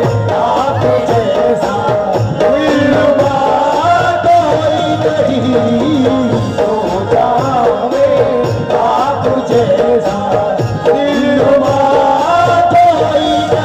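Qawwali music: a man singing melodic lines over harmonium and tabla.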